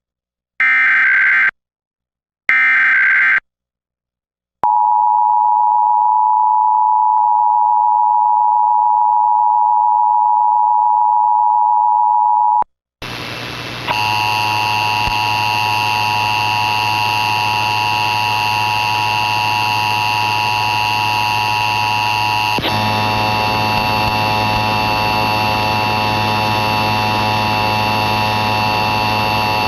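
The last two data bursts of an Emergency Alert System SAME header from a DASDEC-II encoder, each a warbling screech about a second long. After a short gap comes about eight seconds of the two-tone EAS attention signal. It is followed by a loud steady hiss and buzz with hum and several held tones, which shift slightly about two-thirds of the way through.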